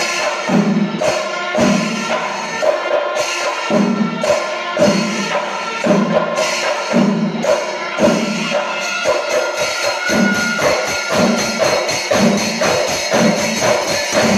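Kerala temple percussion ensemble of drums and clashing hand cymbals playing fast, with a heavier drum stroke about once a second.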